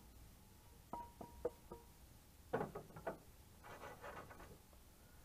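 Metal utensil clinking and scraping against a frying pan as fried vegetables are scraped out into a stockpot. A few short ringing clinks come about a second in, then scraping.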